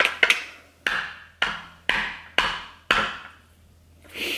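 Wide plastic bubble tea straw striking the taut plastic sealing film of a cup, about seven sharp, ringing knocks roughly half a second apart as it is jabbed to pierce the seal.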